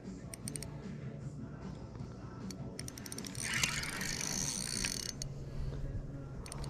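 Fishing reel being cranked to bring in a hooked fish, its gears and mechanism clicking irregularly.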